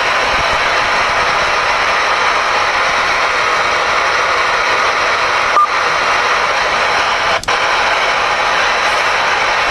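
CB radio receiver static: a steady hiss from a CRE 8900 ten-meter radio's speaker as it listens to a quiet band. A short beep with a click comes about five and a half seconds in, and another click with a brief dropout about two seconds later.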